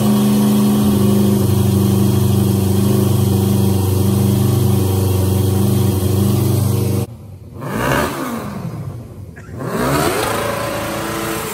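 A golf cart's 600cc engine running at a steady high speed. About seven seconds in the sound drops off abruptly, and the engine then rises and falls in pitch twice.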